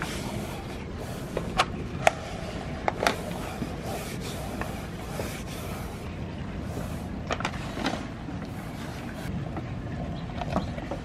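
Hands fitting a SeaDek foam deck pad by hand: scattered sharp taps and clicks, a few close together about two and three seconds in and again near the end, over a steady background hiss.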